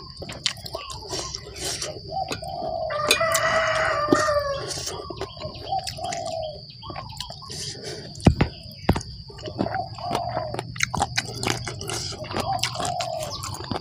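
A rooster crowing once, a long call starting about two seconds in, with several shorter chicken calls before and after it, over a steady high-pitched whine.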